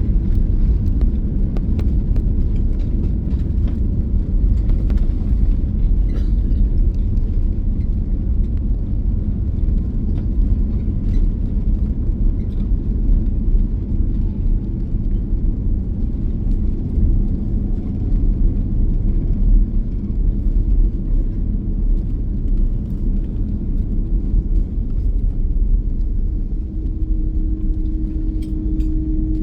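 Airbus A330-200 cabin noise heard from a window seat: a loud, steady low rumble of the airliner's engines and airframe, with a steady hum coming in near the end.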